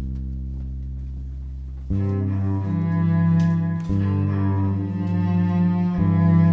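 Live instrumental music led by a bowed cello. A long low note is held at first, and about two seconds in more instruments join, playing held chords.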